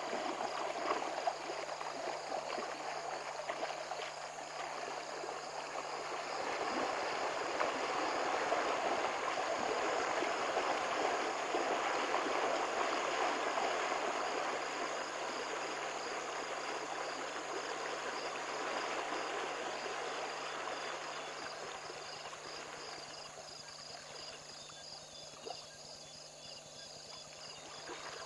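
Steady rush of moving water that swells in the middle and fades away over the last several seconds, over a continuous pulsing chorus of night insects.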